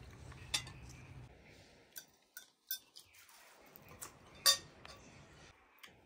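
Cutlery and dishes clinking as food is served at the table: a handful of separate sharp clinks, the loudest about four and a half seconds in.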